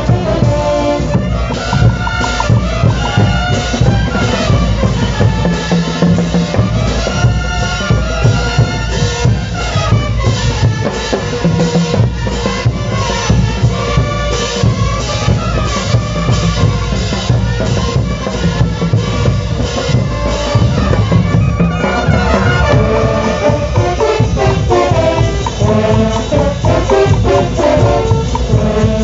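Bolivian marching brass band playing kullaguada music: brass melody over a steady beat of bass drums and cymbals. There is a short break about three-quarters of the way in, and then a new phrase begins.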